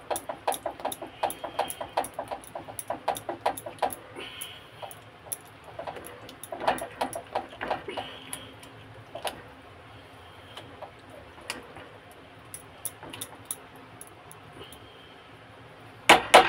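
Stirring utensil clicking and scraping against a stainless steel bowl while mixing thick semolina idli batter: quick taps at about four or five a second at first, then slower, fainter strokes, with a louder clatter near the end.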